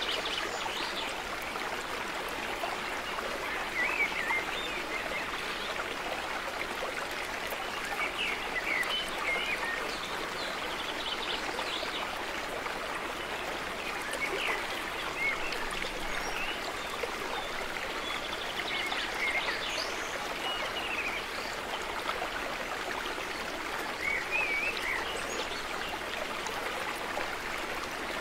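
Steady rushing of flowing water, like a stream, with scattered short bird chirps over it.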